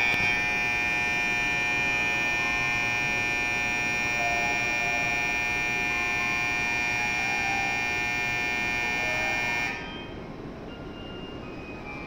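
Electronic departure bell on a Shinkansen platform, a steady ringing of many held tones that signals the train is about to leave; it cuts off abruptly about ten seconds in.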